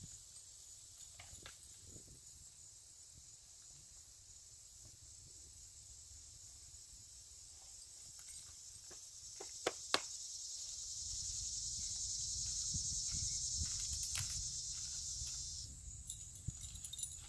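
Summer insects buzzing in a steady high drone; about ten seconds in the buzz swells louder, in the way of a cicada's call, and cuts off suddenly near the end. A few light clicks sound just before the swell.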